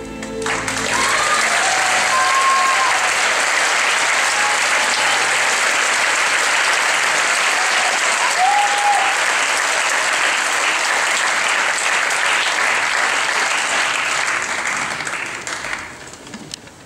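Theatre audience applauding, starting about half a second in as the last of the music stops, with a few brief calls over it. The applause dies away near the end.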